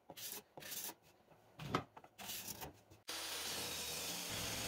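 Steel card scraper drawn across a glued-up walnut and cherry board in about four short rasping strokes, scraping off dried glue beads. About three seconds in it cuts off and a steady hiss takes over.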